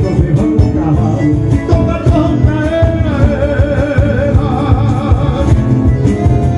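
Live gaúcho folk music: a band playing with a steady beat, the acoustic guitar played by the performer among the instruments.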